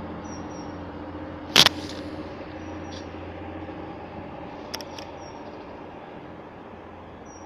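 Diesel engines of a double Class 185 diesel multiple unit running with a steady drone that slowly fades as the train pulls away. A sharp click comes about one and a half seconds in, and two faint ticks about five seconds in.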